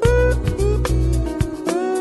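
Background music: a song with guitar over a steady bass and drum beat.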